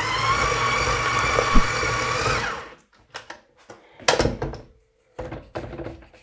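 KitchenAid stand mixer motor running fast with its flat beater in a soft dough, a steady whine that winds down and stops about two and a half seconds in. After that come scattered clicks and knocks as the mixer head is raised and a spatula works against the beater and the steel bowl.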